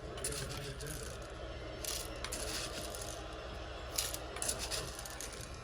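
Whole black peppercorns spooned into an electric pepper grinder's chamber, rattling in three spells of quick small clicks.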